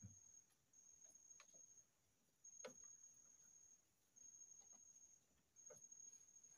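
Faint high-pitched insect trill at one steady pitch, coming in phrases of about a second to a second and a half with short breaks between, and a few soft clicks.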